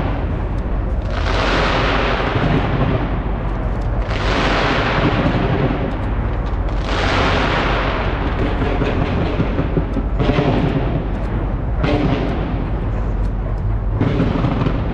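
Large fireworks display fired from a skyscraper: continuous bangs and crackling over a steady low rumble, swelling in waves every two to three seconds.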